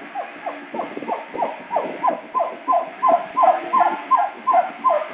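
Doberman puppy crying in a rapid string of short yelps, about three a second, each dropping in pitch and growing louder: distress cries while it is held for tail docking.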